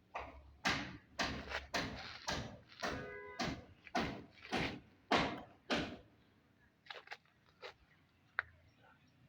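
Rhythmic hammering: about ten sharp blows at a steady pace of somewhat under two a second, followed by a few lighter taps near the end.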